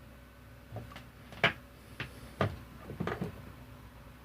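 Hair straightener parts and cable connector being handled: a series of about six sharp clicks and knocks, the loudest about one and a half seconds in.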